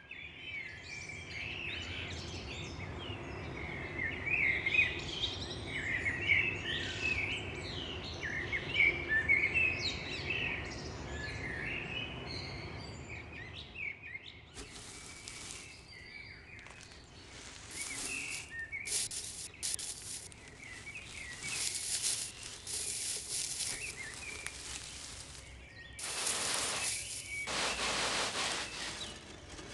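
Small birds chirping and twittering, many short calls over a low background rumble. About halfway through the chirping thins out and gives way to a series of hissing noise bursts that start and stop abruptly, the longest near the end.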